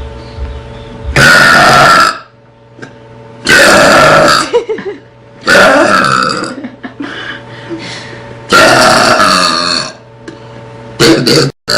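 A girl burping loudly four times in a row, each long burp lasting about a second with short pauses between them, then a few short bursts near the end.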